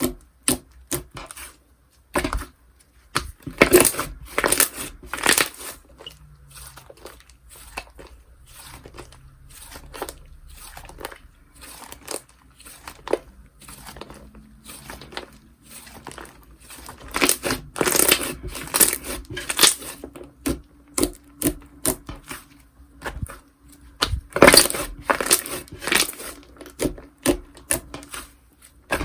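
Slime being squished, pressed and pulled by hand: irregular runs of short crackling, popping clicks, denser in a few clusters near the start, in the middle and near the end.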